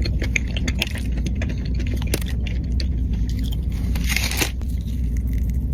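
Crunching and crackling of someone biting and chewing a snack mix of pretzels, potato chips and candy, with a louder crunch past the middle, over a steady low rumble.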